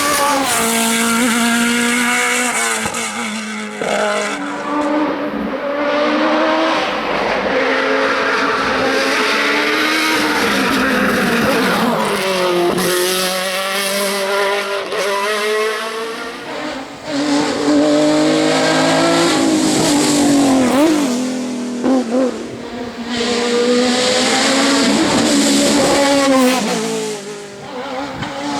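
Race car engines revving hard, the pitch climbing through the gears and dropping again under braking, over and over, with some tyre squeal.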